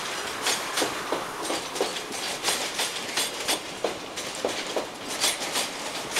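Container flat wagons of a freight train rolling past, their wheels clicking over the track in a steady clickety-clack of a few clicks a second, some in pairs, over a continuous rumble.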